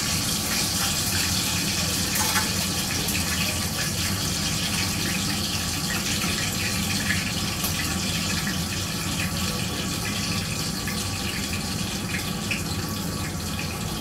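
A steady rushing kitchen noise, with a few light clinks now and then.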